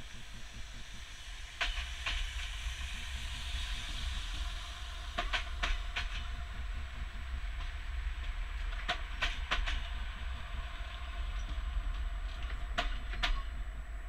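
Siemens Desiro diesel multiple unit passing slowly: a steady low rumble with groups of two to four sharp wheel clicks as its wheelsets cross the track joints, and a hiss in the first few seconds.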